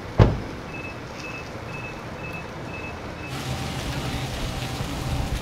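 A sharp knock, then a short electronic beep repeating about twice a second. After about three seconds a steady hiss and a low hum join in.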